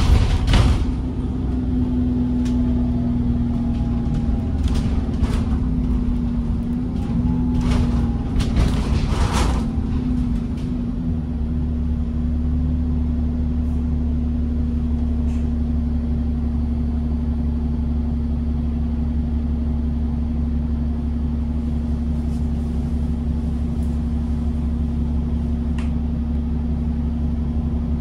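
Double-decker bus engine and body heard from the upper deck: a low rumble with knocks and rattles over the first ten seconds while the bus is moving, then a steady idle drone with an even hum once the bus stands still.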